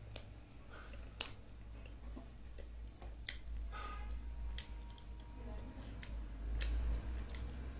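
Hand-eating sounds: fingers tearing roti on a ceramic plate, then squishing and mixing food in a ceramic bowl of dal and rajma, with scattered sharp clicks of fingers against the ceramic. A steady low hum runs underneath.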